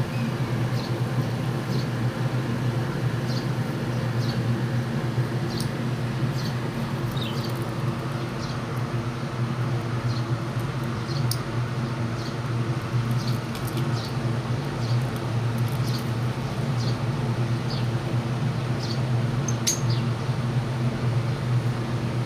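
Lovebirds giving short, high chirps scattered throughout, over a steady low hum that is louder than the birds.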